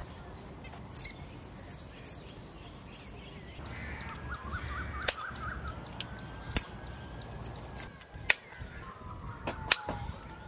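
Sharp clicks and knocks of metal camping-rack poles and a hook bracket being fitted together by hand, about five of them in the second half. Birds call in the background.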